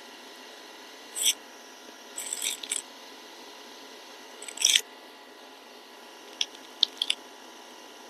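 Small hand tools working a jumper wire onto a laptop motherboard, fitted in place of a blown inductor: a few short scratchy snips and scrapes, the loudest about halfway through, then three quick light clicks near the end, over a steady faint background hiss.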